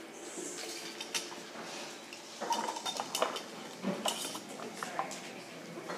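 Glass jars and kitchen utensils clinking and knocking on a counter as slime is handled, in irregular short clinks.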